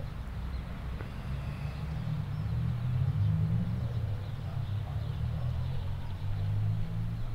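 Low, unsteady outdoor rumble that rises and falls, with little sound above it.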